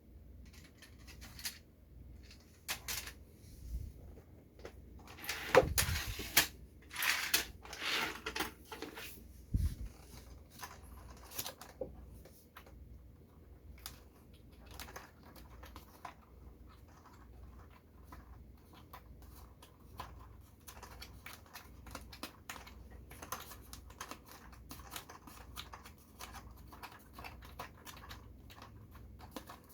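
Hands handling a plastic toy snow groomer model, making scattered light clicks, taps and rustles. The handling is busiest and loudest from about five to ten seconds in, with a few sharper knocks.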